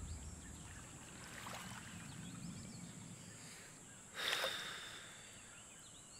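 Faint outdoor ambience: a steady high hiss with small bird chirps, and one short sudden noise about four seconds in.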